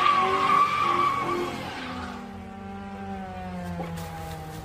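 Car doing a smoky burnout: tyres squealing over the revving engine for about the first two seconds, then the squeal dies away and a steadier, lower hum carries on.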